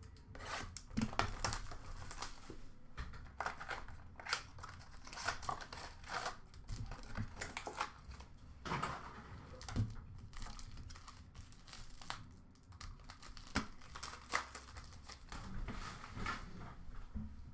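Trading card packaging being torn open and crinkled: a run of irregular crackles and rips from the box and its foil pack wrappers, with no steady rhythm.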